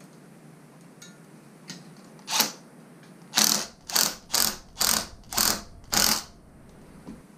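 Cordless power driver turning a hose clamp screw in short trigger bursts: one burst, then six quick ones about half a second apart, tightening the clamp.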